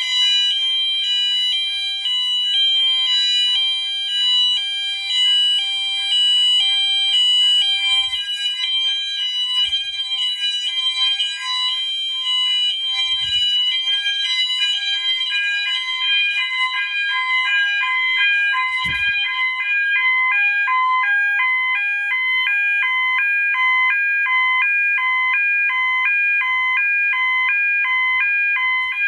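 Several fire alarm notification appliances sound together in continuous mode, with the system in alarm from a manual pull station. A two-tone high-low sounder alternates evenly about twice a second over steady electronic horn tones. Together they are very loud.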